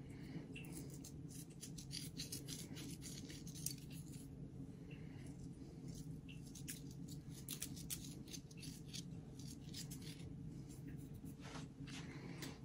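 Faint, scattered ticks and light rasping of coarse pink salt being sprinkled by hand onto a foil-lined pan of chocolate, over a steady low hum.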